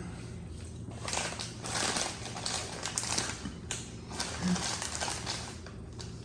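Eating noises close to the microphone: a quick run of irregular crunching and crackling.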